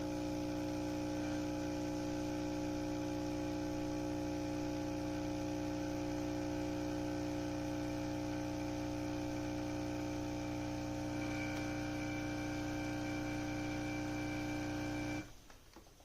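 Coffee maker's water pump humming steadily during a brew cycle, then shutting off abruptly near the end as the brew finishes.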